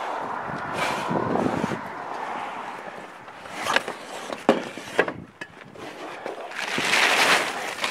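Gusty wind on the microphone and a plastic tarp rustling and flapping over a metal roof, with a few sharp knocks in the middle and a loud rush of wind and rustling near the end.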